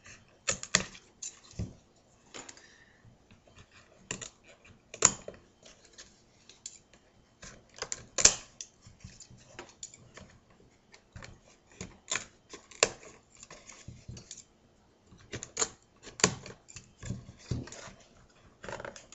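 Scissors snipping through flat reed basket stakes, cutting each one flush with the top row of weaving: irregular sharp snips every second or few, with fainter clicks between them.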